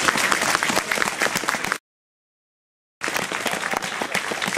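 Spectators applauding: dense clapping that cuts out to complete silence for about a second, about two seconds in, then resumes.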